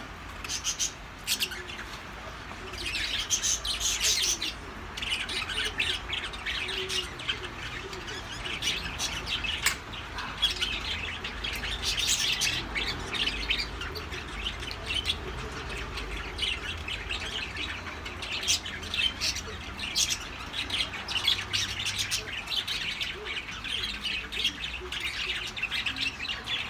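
Birds chirping and squawking, with a few sharp clicks.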